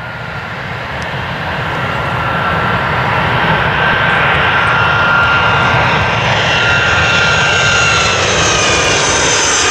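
Turkmenistan Airlines Boeing 757-200's jet engines on landing approach, growing louder as the aircraft closes in, with high whining tones over a broad rush that drift slowly down in pitch.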